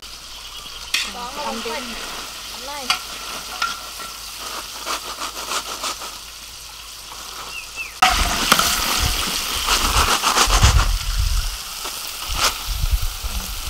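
Chicken deep-frying in a large wok of hot oil: a steady sizzle with scraping from a metal strainer. About eight seconds in it gets suddenly louder, with knocks and rattling as the fried pieces are tipped from a wire strainer into a woven bamboo basket.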